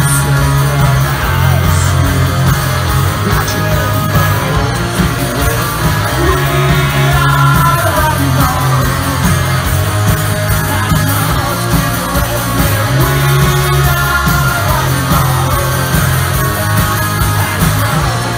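Rock band playing live: electric guitars, bass guitar and drums, loud and continuous.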